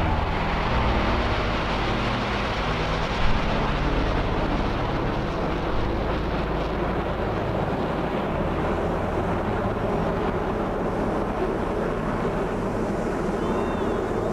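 Jet noise from a four-ship formation of F/A-18 Hornets flying past: a loud, steady roar whose hiss fades after a few seconds as the jets pull away, leaving a duller rumble.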